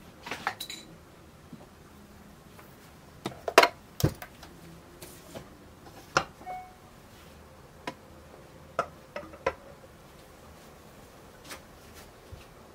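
Scattered clinks and knocks of kitchen utensils against a mixing bowl and the table as the bowl and tools are handled, a dozen or so short sharp hits with the loudest pair about three and a half to four seconds in.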